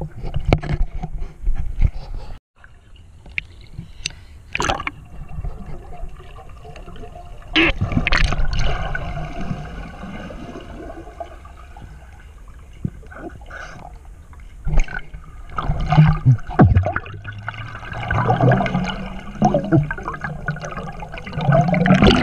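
Water heard from an underwater camera in a pond: muffled sloshing and gurgling as a swimmer moves, with several sharp knocks scattered through and a burst of bubbles near the end.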